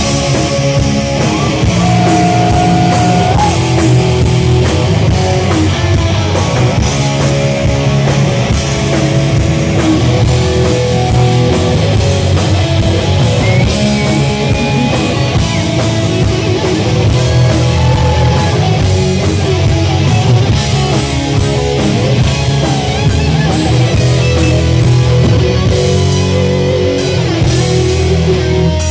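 Heavy metal band playing live and loud: distorted electric guitars over bass and a pounding drum kit, with no vocals.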